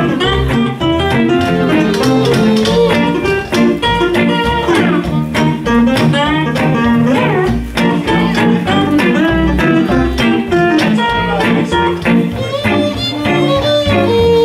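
Live small string band playing an instrumental break: fiddle, clarinet, archtop guitar and lap steel guitar over upright bass, with sliding notes around the middle.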